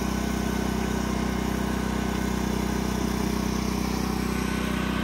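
An engine running steadily at idle, a constant low hum that does not change.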